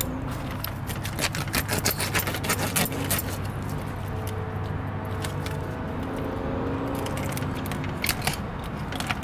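Small knife cutting and working through a freshly scaled snapper on a cutting board: a dense patter of small clicks and light clinks for the first few seconds, sparser after, with another flurry near the end, over a steady low hum.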